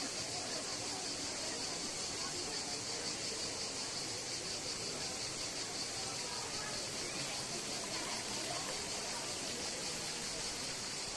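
Steady, high insect chorus with an even pulsing buzz, over faint distant voices.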